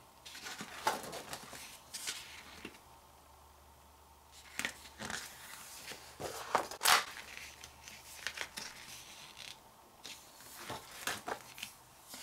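Photobook pages being turned by hand: several short paper rustles and swishes, one louder than the rest a little past the middle.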